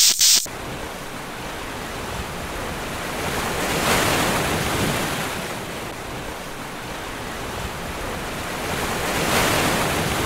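Ocean surf washing in, with wind, swelling twice about five seconds apart. A short, loud burst of noise comes at the very start.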